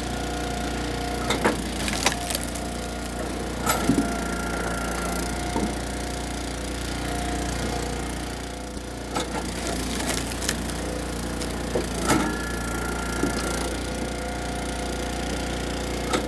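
Eastonmade Axis hydraulic log splitter's engine running steadily while ash rounds are split. Sharp cracks and knocks of the wood splitting and of the pieces hitting the steel table come every one to few seconds, with a cluster of them at about four seconds and around twelve seconds.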